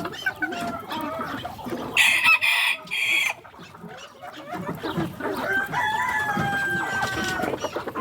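Chickens clucking, with a rooster crowing: a loud harsh call about two seconds in and a long, level crow from about five and a half seconds that ends near the close.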